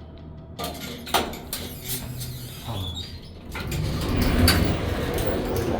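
Hotel elevator mechanism: a few clicks and knocks, then a louder rattling rumble from about three and a half seconds in as the car or its sliding door works.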